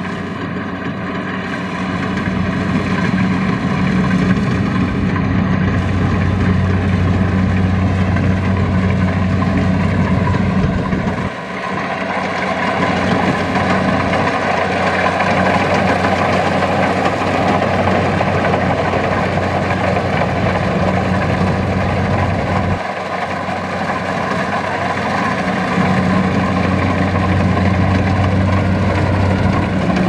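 Kubota crawler combine harvester running steadily while it cuts and threshes rice: a constant low engine drone with a broad mechanical din over it. The sound breaks off briefly twice.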